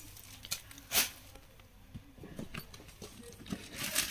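Sarees in their wrapping being handled: a few soft knocks, the sharpest about a second in, then crinkling and rustling that builds near the end.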